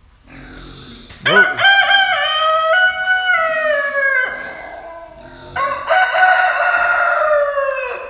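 Rooster crowing twice: a long crow beginning about a second in and held for about three seconds, then a second long crow that slides down in pitch as it ends.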